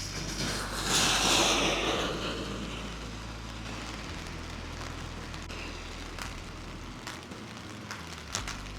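Steady rain hissing, with a louder rushing swell about a second in that fades away over the next second, and a few sharp ticks near the end.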